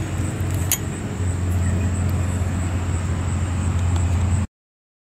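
Steady low mechanical hum, as of an engine running, that grows louder about a second in, with a single light click under a second in. The sound cuts to silence near the end.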